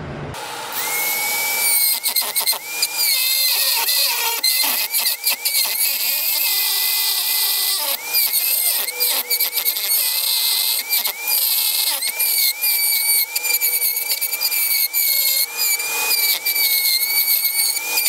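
Handheld rotary tool cutting with a small bit to enlarge a cable hole in a boat's dash panel. It starts about a second in and runs with a high-pitched whine that wavers and dips as the bit bites, over a gritty grinding rasp.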